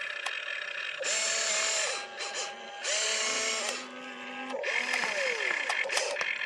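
Small electric motors of a remote-control excavator whining in several short runs as the arm swings and the bucket tips. Each run rises in pitch, holds briefly, then drops away as the motor stops.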